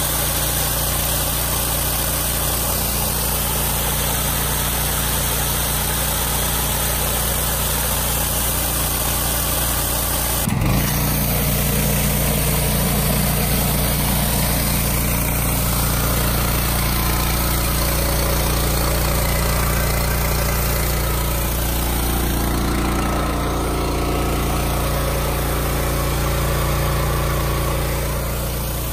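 A pressure washer's engine runs steadily, driving a stainless-steel rotating surface cleaner whose water spray hisses under the engine note. There is a brief knock about ten seconds in.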